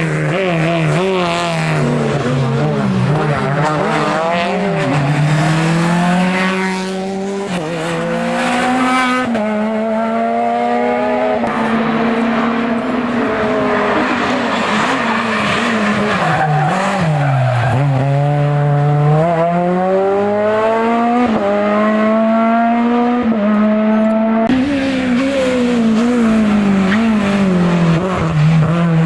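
Hill-climb race car's engine at full effort, its note repeatedly climbing and then dropping sharply through gear changes and corners.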